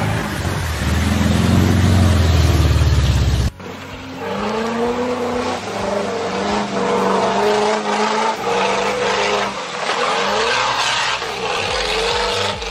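VW Beetle air-cooled engines revving hard while driving through mud. For the first three and a half seconds one engine runs loud and deep. After a sudden cut, another Beetle's engine rises and falls in pitch again and again with the throttle.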